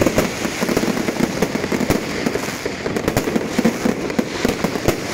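Fireworks and firecrackers going off in a dense, continuous string of sharp bangs and crackles, many pops a second.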